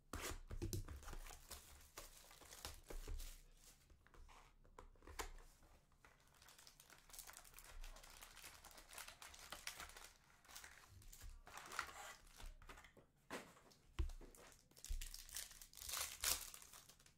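Trading-card hobby box and foil card packs being torn open by hand: irregular tearing, crinkling and rustling of foil and card, busiest in the second half, with a couple of dull knocks on the table near the end.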